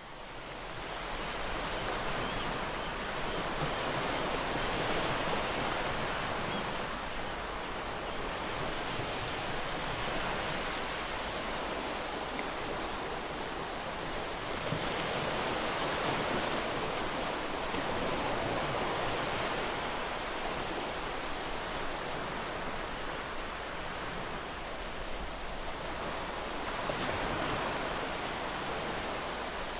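Ocean surf breaking on a shore: a steady rushing wash that swells and eases slowly as waves break, fading in at the start.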